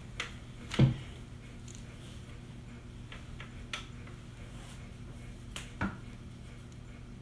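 Scattered clicks and knocks from people moving and handling things close by, the loudest a thump about a second in and another just before six seconds, over a steady low hum.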